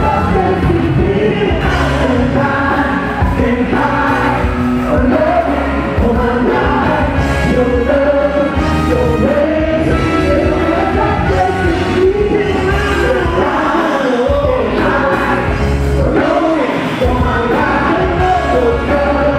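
Live band and choir performing an upbeat song: lead singers on microphones with a choir behind them, over a steady heavy bass, drums and horns.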